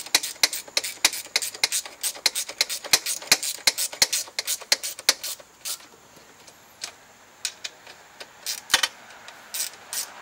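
A rapid run of sharp ratcheting clicks, about five a second, that thins out about halfway through to a few scattered clicks.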